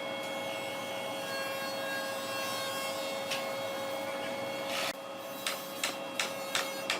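Woodworking sounds: a power tool hums steadily with wood rubbing and scraping, then just under five seconds in the sound changes abruptly and a run of sharp taps follows, about three a second, like wood being tapped or hammered.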